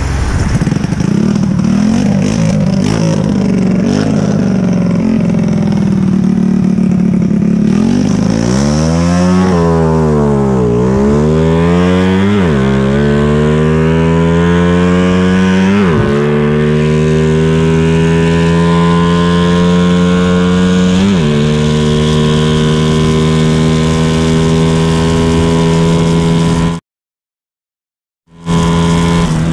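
Honda Wave 100 motorcycle's single-cylinder four-stroke engine accelerating through the gears: its pitch climbs and drops sharply at each of three shifts, then holds steady at cruising speed. The engine is fitted with a racing cam, a Koso carburettor and a Suzuki Raider exhaust pipe. The sound drops out briefly near the end.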